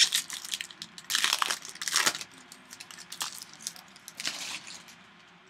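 Foil wrapper of a 2013 Topps Strata football card pack crinkling and crumpling as it is handled and torn open, in several short rustling bursts that die away near the end.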